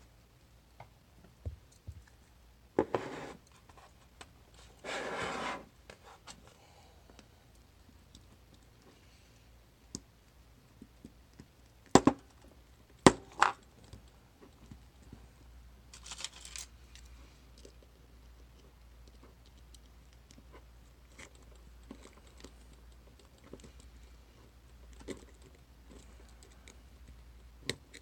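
Small metal lock parts being handled and scraped, with two sharp loud knocks about a second apart near the middle, as the Assa Desmo cam lock is whacked to drive its internals out.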